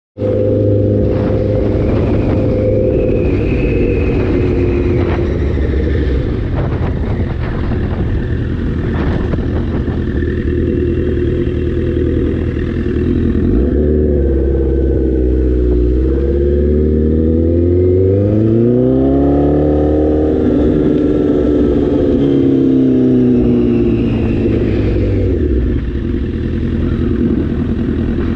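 Honda CBR1000RR inline-four engine running under way. Its pitch holds steady, drops about halfway through as the bike slows, then climbs smoothly as it accelerates again and eases off near the end, with a constant rush of noise over the microphone.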